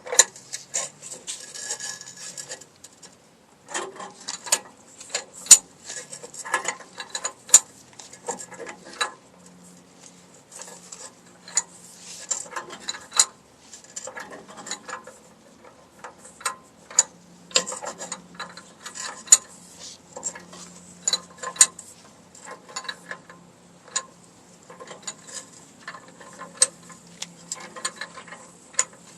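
Hand tools clicking and scraping on metal, irregular sharp clicks in clusters, as a brake line fitting is threaded and tightened into a new rear drum-brake wheel cylinder.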